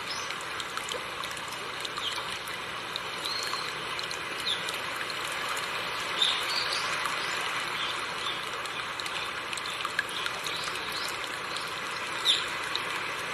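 River water running steadily over rocks, a continuous rushing trickle. Short bird chirps come through it now and then, the loudest about six seconds in and near the end.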